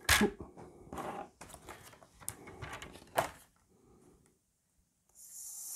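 Paper trimmer's blade cartridge slid along its plastic rail, cutting through cardstock: clicks and a scraping rustle over about three seconds, ending in a sharp click.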